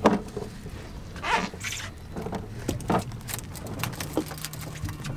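Knocks and rattles of a wire crab trap and its rope being handled on a fiberglass boat deck, over the low steady hum of the boat's outboard motor.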